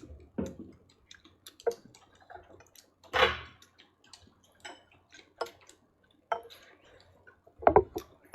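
Tableware clattering at a meal: scattered light clicks and knocks at an uneven pace, with a louder clatter about three seconds in and another near the end.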